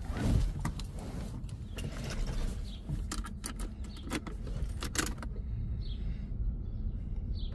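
Keys jangling and a series of sharp clicks as a start is tried on the LS-swapped BMW E36 after a relay swap. The engine does not crank, which points to a fault in the starter circuit.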